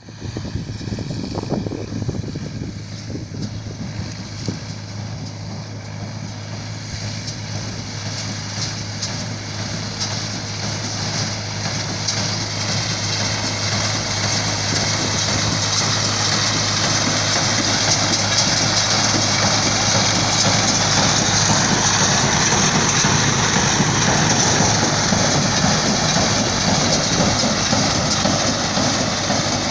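Tractor-drawn hay baler at work: a steady engine hum under continuous machinery noise, growing louder about halfway through.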